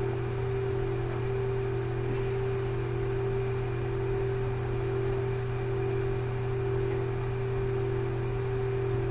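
A steady hum: one constant mid-pitched tone over a low drone and an even hiss, unchanging throughout.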